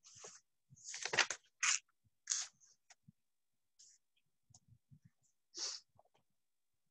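Faint rustling and scraping handling noises: a cluster of short brushes in the first two and a half seconds and one more near the end, with a few soft low taps between.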